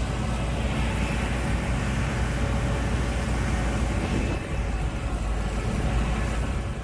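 Gleaner S98 combine harvester running steadily at working load, with the engine's low rumble and the threshing machinery's noise mixed together as it picks up an oat swath.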